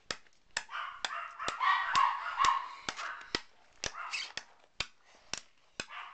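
Steady mechanical ticking, about two sharp ticks a second, with muffled, unworded vocal noises from a child between the ticks.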